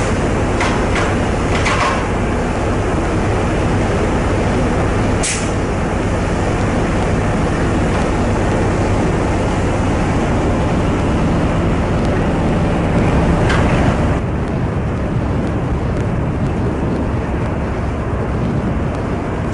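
Steady loud rumble and rush of a ship under way at sea, with a low engine hum beneath and a few short hissing bursts; the high hiss eases about two-thirds of the way through.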